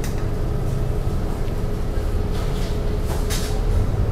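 City bus heard from inside the cabin, running with a steady low rumble and a constant hum as it creeps in traffic, with a few light rattles about three seconds in.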